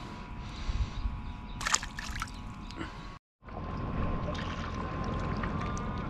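River water lapping and sloshing against rocks right beside the microphone, steady after an abrupt cut about three seconds in. Before the cut there is quieter bank ambience with a few brief knocks.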